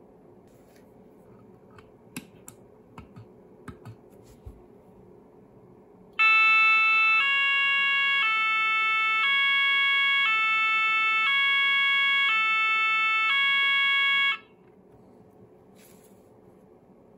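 Roshni LP electronic fire alarm sounder giving a two-tone alternating alarm, switching between a high and a low pitch about once a second for roughly eight seconds, then cutting off sharply. A few light clicks come before it.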